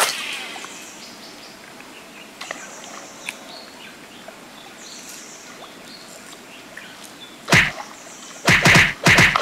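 A fishing rod swishes through a cast at the start, followed by quiet riverside ambience with faint bird chirps. Near the end a topwater lure splashes sharply on the water, once and then in a quick run of several splashes as it is twitched across the surface.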